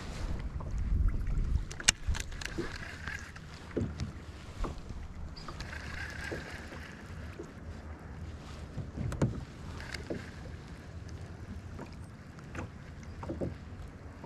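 Fishing from a kayak: small knocks and taps on the kayak with water and low wind noise, a low rumble near the start and one sharp click about two seconds in.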